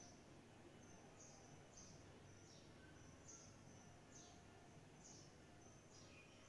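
Near silence with a bird's faint, high chirps repeating about one or two a second, each a short call that slides down in pitch.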